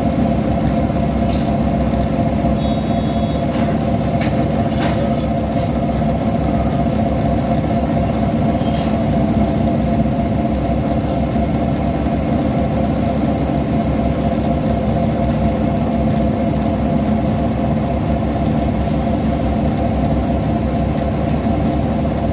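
A 2010 Nova Bus LFS articulated city bus's diesel engine running steadily, a constant hum with a few faint clicks.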